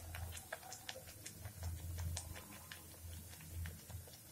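Bhatura dough deep-frying in hot oil in a kadhai: the oil crackles with many scattered, irregular sharp pops over a low hum.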